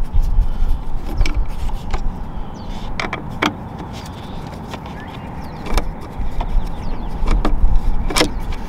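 Phillips screws being removed from a car's plastic interior trim panel: scattered light clicks and knocks of screwdriver and plastic, spaced irregularly over a low rumble.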